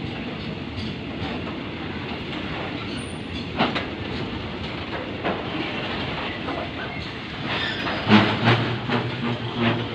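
Railway tank wagons of a long oil freight train rolling past: a steady rumble and rattle of steel wheels on the rails with occasional sharp clacks, turning into a run of louder clanks near the end.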